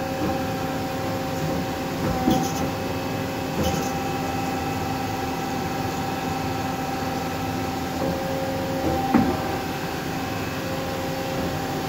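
Hyd-Mech H14A automatic horizontal band saw running with a steady hum of several fixed tones. There are light clicks about two and three and a half seconds in, and a brief shift in the hum near nine seconds.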